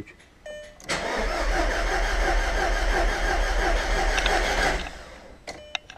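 Audi TT's freshly rebuilt engine cranking on the starter for about four seconds without catching, with an even pulsing beat, then stopping. A short electronic beep sounds just before the cranking and again after it stops.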